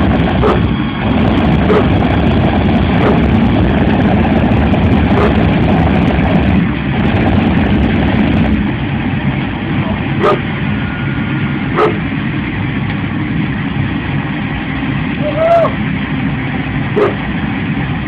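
Jet engine running with a loud, steady rushing roar that eases a little about halfway through. A dog yips and barks a few times over it.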